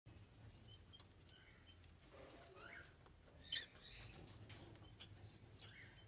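Lovebirds chirping faintly, with short scattered chirps and one louder chirp about three and a half seconds in.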